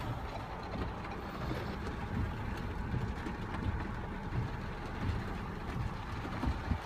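Steady cabin noise inside a 2016 Ford Explorer reversing slowly under Active Park Assist: the engine running at idle and rain on the body.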